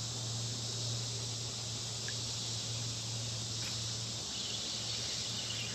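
Steady chorus of insects buzzing, with a low steady hum underneath that weakens about four seconds in.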